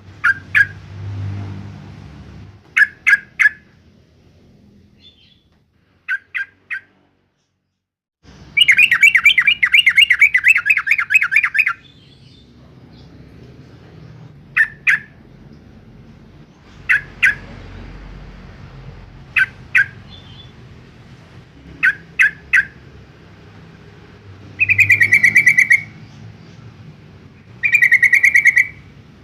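Yellow-vented bulbul calling: short clusters of two to four sharp notes, with a rapid chattering run of about three seconds after about eight seconds and two shorter chattering bursts near the end.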